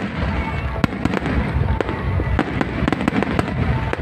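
Aerial fireworks display: shells bursting in the sky in a rapid, irregular string of sharp bangs over continuous crackling.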